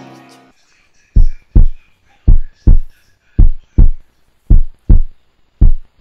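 Heartbeat sound effect: five pairs of deep thumps, about one pair a second, each pair two quick beats. Orchestral music fades out in the first half second.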